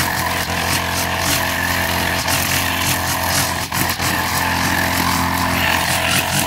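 Hoyoma GX35 brush cutter's small four-stroke engine running steadily under load as it cuts through thick grass, with a few short sharp ticks along the way.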